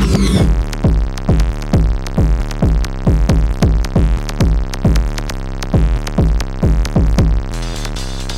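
Early-1990s techno track: a drum-machine kick drum on a steady beat, about two kicks a second, over a repeating low synth pattern. About a second before the end the kick drops out and a hissing high texture comes in.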